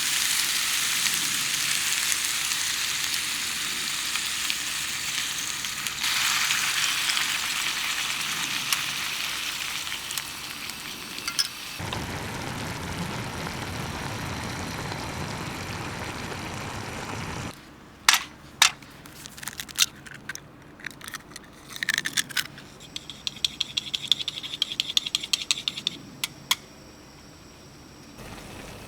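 Food sizzling in a pan for the first twelve seconds or so, then a lower rushing sound. After that it is quieter, with scattered sharp clicks and clinks and a quick run of ticks near the end.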